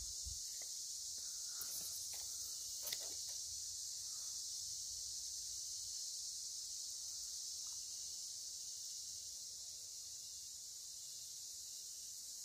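Steady high-pitched insect chorus, with one faint tick about three seconds in.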